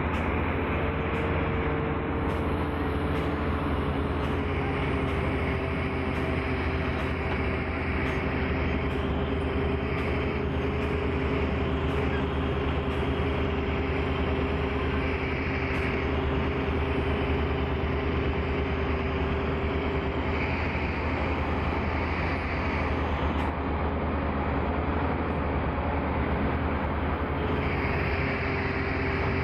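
Large Tata Hitachi mining excavator's diesel engine running steadily as it digs and loads a dump truck, a deep continuous drone with a steady higher whine over it. The whine fades out about two-thirds of the way through and comes back near the end.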